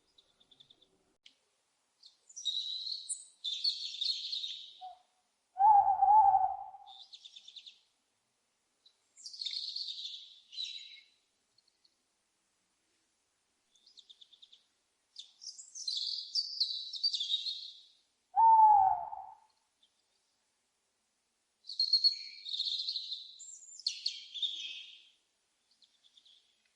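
Owl calls: two short hoots, each falling slightly in pitch, about twelve seconds apart, are the loudest sounds. Around them come repeated bursts of high, scratchy chirping calls.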